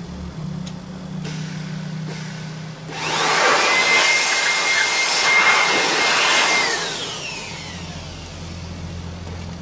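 Electric air blower blowing dust out of a stripped printer chassis. About three seconds in, a loud rush of air with a steady high whine starts. Near seven seconds it winds down with a falling pitch, and a low hum runs underneath throughout.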